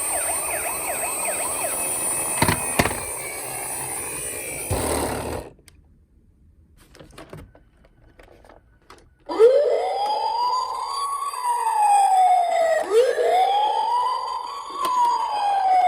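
Toy emergency-vehicle minicar sirens: a fast warbling siren for about five seconds, with two clicks in it. After a few seconds of quiet, a slow wail rises and falls twice.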